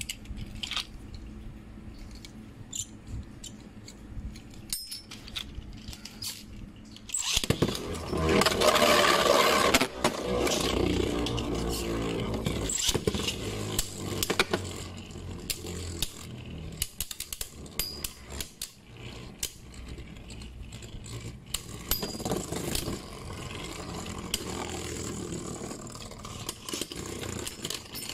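Small clicks and rattles of Beyblade tops being readied by hand, then about seven seconds in both are launched together with a loud whir. Astral Spriggan in left spin and Guilty Longinus then spin and grind on the plastic stadium floor, with sharp clacks as they clash, the noise easing toward the end.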